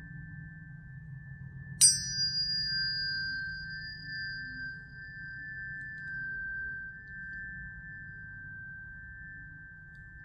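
Tuning fork ringing with a steady high tone. About two seconds in, a fork is struck sharply and gives a higher ring that fades over a few seconds while the first tone carries on.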